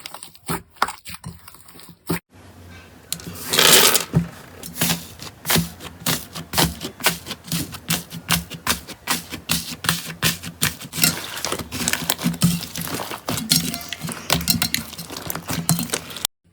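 Slime being squeezed and pressed by hand, giving rapid, irregular crackling and popping clicks. There is a sharp cut about two seconds in, after which the clicks come denser and louder, and the sound cuts off just before the end.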